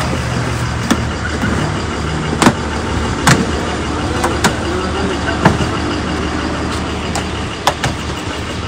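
A motor vehicle engine runs steadily. Several sharp knocks and clacks sound through it as solar street-light units and their cardboard packing are handled.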